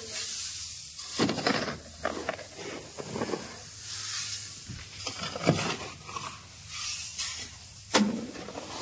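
Loose wheat grain hissing and rustling as a metal hoe blade is dragged and pushed through a heap of it, in repeated strokes about a second apart. A sharp knock comes about eight seconds in.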